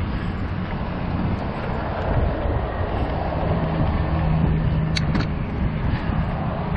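Steady rush of motorway traffic from the lanes beside the cycle path. A low engine hum swells through the middle and fades, and two short sharp clicks come about five seconds in.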